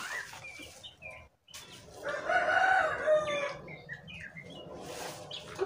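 A rooster crowing once, a single long call of about a second and a half, starting about two seconds in.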